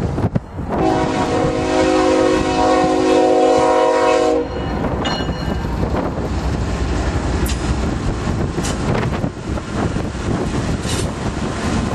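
A locomotive air horn sounds one long chord of several tones lasting about four seconds, then cuts off. After it the train runs past with a steady rumble and scattered clicks of wheels over the rail.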